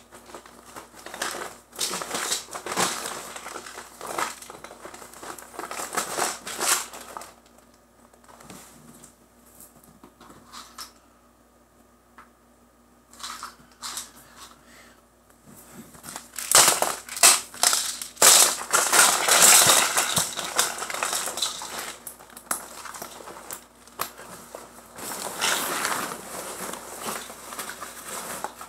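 Bags being handled and rummaged through: fabric rustling and crinkling in fits and starts. It goes quiet for several seconds midway, then the loudest handling comes in the second half, as a purple backpack is picked up and its contents worked.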